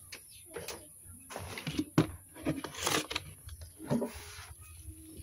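Scattered knocks, clicks and rustling, with a sharp knock about two seconds in.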